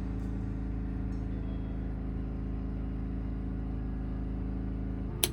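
Steady low drone of a running engine, with a single sharp click about five seconds in.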